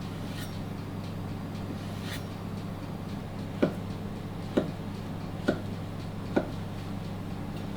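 Four short, sharp knocks about a second apart over a steady low hum.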